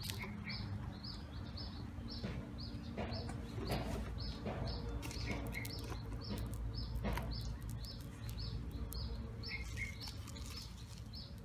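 Outdoor bird chirping: a short high note repeated evenly about three times a second, with a few other lower calls now and then. Scattered soft clicks and a low background rumble.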